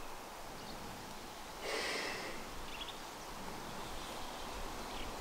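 Quiet outdoor ambience with one brief rustling swish a little under two seconds in, lasting under a second.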